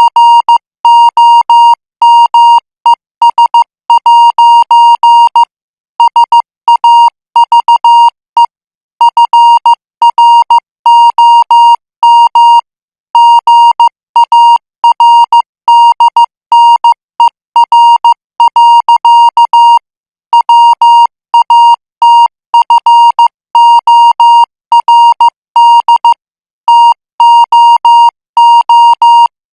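Morse code practice signal sent at 14 words per minute: a single high-pitched tone keyed into short and long beeps, grouped into characters with longer pauses between groups.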